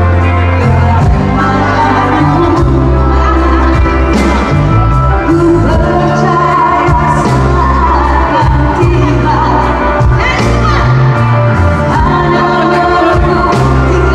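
Female vocalist singing a Malay pop song into a microphone, backed by a live band with electric guitar and bass guitar, all amplified through a PA system.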